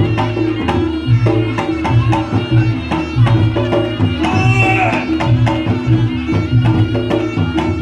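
Reog Ponorogo gamelan music. Kendang drums beat a fast, busy pattern over steady ringing kenong and gong tones, and a reedy slompret phrase bends up and down about four and a half seconds in.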